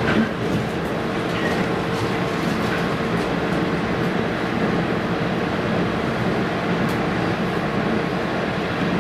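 Inside a JR East 719 series electric train running along the line: steady rumble of wheels and rails with a steady-pitched whine from the traction motors. This unit's motor sound is unusual for the 719 series.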